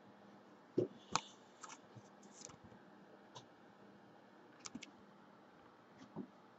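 Faint scattered clicks and light taps of hands handling a framed trading card and the card box, the two loudest about a second in.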